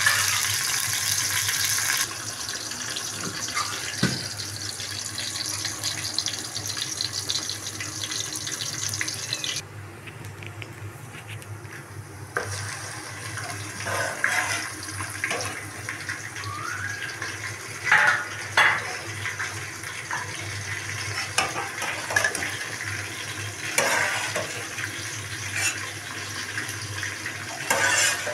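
Sliced onions sizzling in hot oil in an aluminium pot, a steady hiss for about the first ten seconds. After a short quieter patch, a ladle clinks and knocks against a steel pot and a plate several times as boiled chicken pieces are lifted out of the broth.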